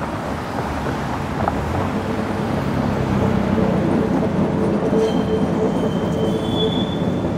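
Train running past on rails, a steady rumble with a humming tone and, from about five seconds in, a thin high whine.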